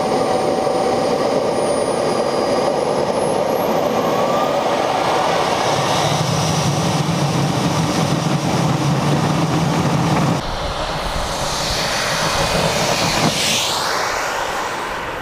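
Model turbojet engine of about 8 kg thrust running at high power on the takeoff roll, a steady jet whine with tones rising over the first few seconds, heard close up from under the wing. About ten seconds in, the same turbine is heard from the roadside, slightly quieter, with a sweeping rise and fall in pitch near the end.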